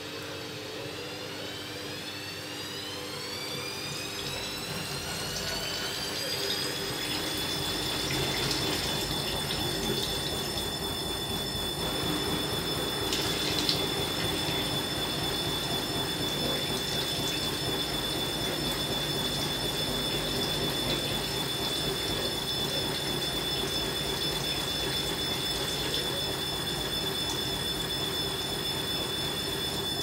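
Synix 7kg front-loading washing machine spinning up: the drum motor's whine rises in pitch over the first several seconds, then holds a steady high whine at spin speed. Wash water pours from the drain hose into a bucket as the drum spins out.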